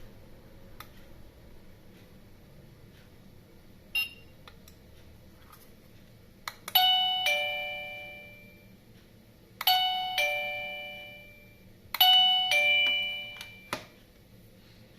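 Wireless doorbell receiver playing a two-note ding-dong chime three times: a bright higher note, then a lower note that rings and fades. The third chime is cut short by a click. A short ping sounds about four seconds in.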